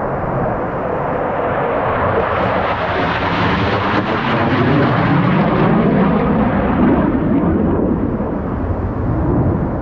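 Low-flying fighter jets passing overhead, the loud jet engine noise swelling to a peak a little past the middle and then easing off.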